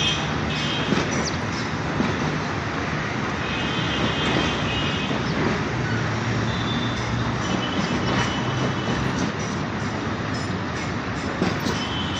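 Passenger train coaches rolling slowly over the rails, a steady rumble of wheels on track. High-pitched wheel squeals come and go several times, with a few sharp clicks over rail joints.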